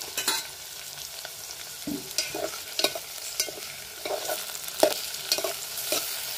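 A metal spoon stirs freshly added chopped tomatoes through onions, green chillies and curry leaves frying in an aluminium pot. It scrapes and knocks against the pot one to two times a second, the loudest knock about five seconds in, over a steady sizzle of hot oil.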